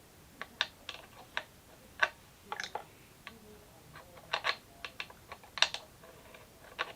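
Irregular light clicks and clacks of metal parts being handled as the bolt of a bolt-action rifle is worked back into the receiver.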